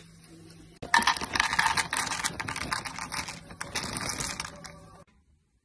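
Blanched almond halves frying in a pan, a dense crackling of many small clicks that starts suddenly about a second in and stops abruptly near the end. Before it, only a faint low hum.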